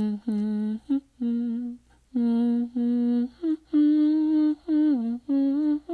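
A woman humming a slow tune without words, about ten separate held notes with brief gaps between them, a few short higher notes, and one note sliding down near the end.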